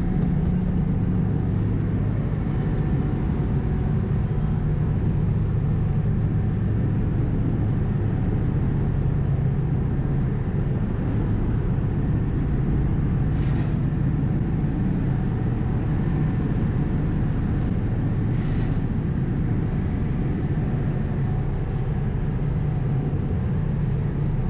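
Steady low engine drone of a car ferry under way, unchanging throughout, with two faint brief hisses about halfway through.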